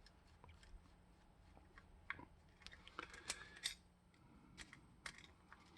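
Faint, scattered clicks and light scrapes of a screwdriver working the screw of a cordless impact wrench's belt clip to take the clip off, over a faint steady hum.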